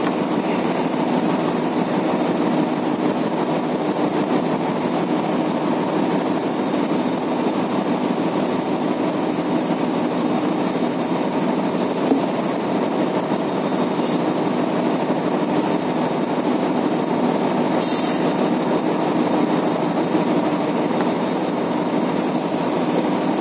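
Steady machinery and ventilation hum aboard a ship, a constant low drone. A few brief clicks of glassware being handled, around the middle and later.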